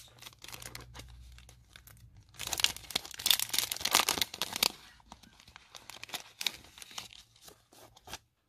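Clear plastic cellophane bags of sticker packs crinkling and crackling as they are handled and turned over, loudest from about two and a half to five seconds in.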